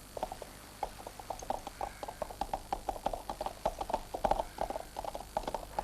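Hooves of several horses clip-clopping on hard ground, a dense, uneven patter of knocks several times a second.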